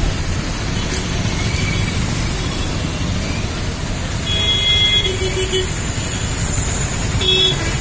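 City road traffic: a steady low rumble of engines and tyres, with vehicle horns honking, one held for about a second from around four seconds in and a short toot near the end.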